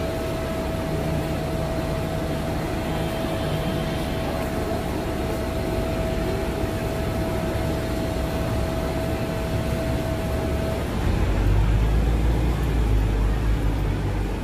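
Street traffic hum with a thin steady high tone that stops about eleven seconds in, when a louder low engine rumble comes in.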